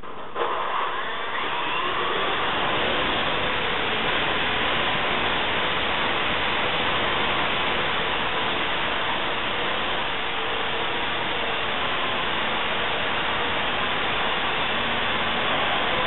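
Parrot AR.Drone quadcopter's four rotors start up suddenly about half a second in, then run in a steady whir with a faint wavering whine as the drone hovers.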